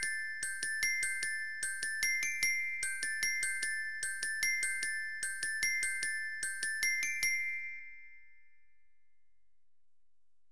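Background music: a bright, bell-like melody of quick struck notes, about three a second, in the sound of a glockenspiel. It stops about three quarters of the way through, leaving near silence.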